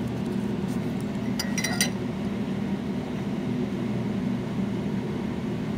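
A clear plastic food container clinks and knocks a few times, about one and a half seconds in, as it is lifted off an electric mandoline chopper and handled over a pot. A steady low hum runs underneath.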